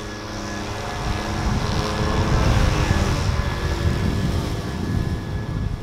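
Riding lawn mower's small engine running, growing louder to a peak about two to three seconds in as it passes close, then easing off.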